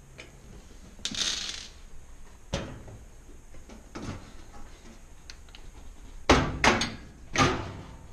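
Sheet-metal back panel of a range being pulled off and handled: a short scrape about a second in, a few light knocks, then three loud clanks near the end.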